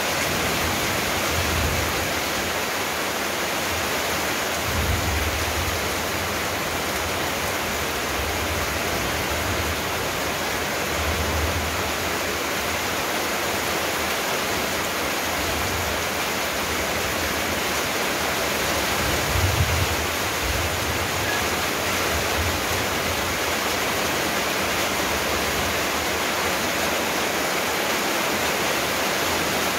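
A steady rushing hiss that spreads evenly from low to high pitches, with a few soft low rumbles every several seconds, the strongest about two-thirds of the way through.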